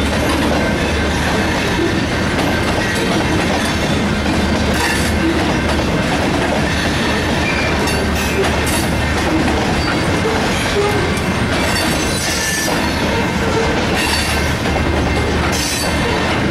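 Freight train of covered hopper cars rolling past, a steady loud rumble with wheels clacking over the rail joints. Short high squeals of steel wheels on rail come and go several times.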